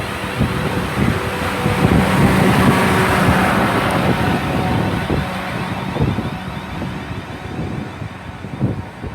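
Class 444 electric multiple unit running in and slowing, with a steady electric hum and a higher tone. It is loudest about two to three seconds in, then fades as the train comes to a stand. Wind buffets the microphone with low thumps.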